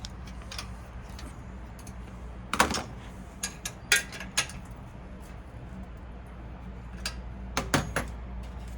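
Scattered metallic clicks and taps of hand tools (Allen key and wrench) on the bicycle's front fender mounting bolt, with a cluster of clicks about three to four seconds in and a few more near the end.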